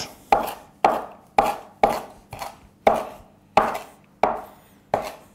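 Mezzaluna (curved rocking knife) chopping fresh parsley on a cutting board: a steady run of sharp chopping strokes, about two a second.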